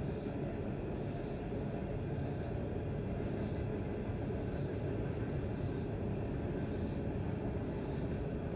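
Steady low rushing noise, with a short high chirp repeating evenly about every three-quarters of a second.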